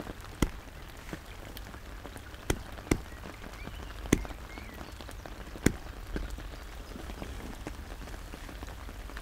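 Steady rain falling, heard from under a fishing umbrella, with five sharp single taps of heavier drops landing close by.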